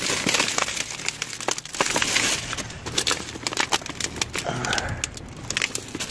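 Trash being rummaged through in a dumpster: plastic bags and packaging crinkling and rustling, with irregular small clicks and knocks as things are shifted.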